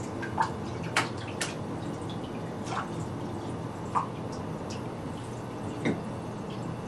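Bathwater splashing and dripping in a bathtub as a toddler is washed: a handful of short, sharp splashes and drips over a steady background hiss.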